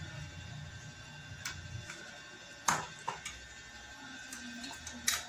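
Scattered sharp clicks and knocks of motorcycle rear fender parts being handled and fitted by hand. The loudest click comes a little under three seconds in.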